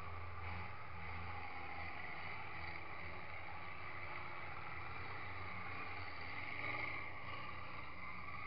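Diesel engines of several stripped-down racing combine harvesters running hard, a continuous low drone.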